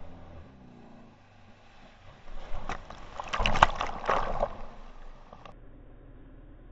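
Stand-up jet ski engine running as the rider spins off the ski, fading in the first half second. Then, about two seconds in, a loud stretch of crashing, churning water against the camera, with sharp knocks, lasting about three seconds and cutting off suddenly. The rider has fallen into the sea in a failed 180 air.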